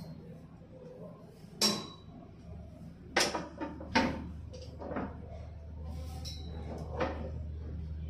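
A plastic cover being fitted onto an electrical terminal enclosure: a series of sharp knocks and clicks, the loudest one after about a second and a half and a cluster around three to four seconds in. A steady low hum runs underneath.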